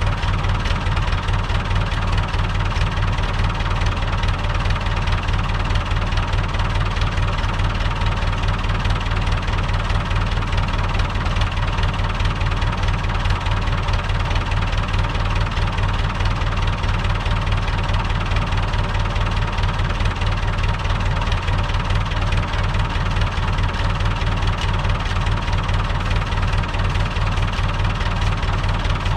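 Tractor diesel engine, a Long 560 DT's, running steadily at a constant speed with a low, even drone.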